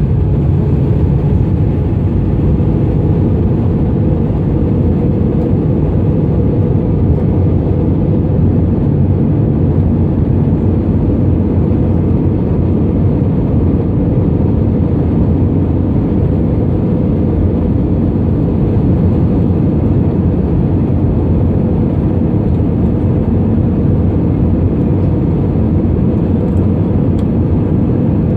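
Airbus A320 cabin noise heard from a window seat over the wing while descending on approach: a steady low rumble of the engines and rushing airflow.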